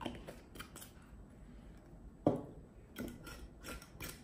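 Small clicks and light knocks of a small glycerin bottle being capped and handled on a wooden tabletop, with one sharper knock about two seconds in and a run of quick clicks near the end.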